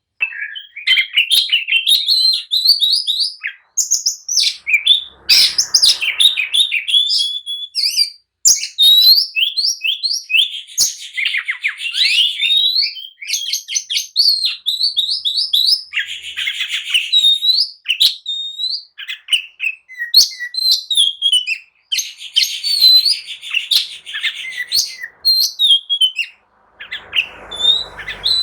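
Oriental magpie-robin (kacer) singing a fast, agitated song of rapid repeated whistles, slurred notes and trills, in phrases broken by short pauses, with a harsh buzzy note about five seconds in and another near the end. It is the excited, aggressive singing of a male in fighting mood.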